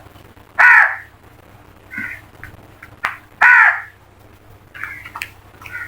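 Crows cawing: two loud, harsh caws about three seconds apart, with fainter caws from other crows in between and near the end.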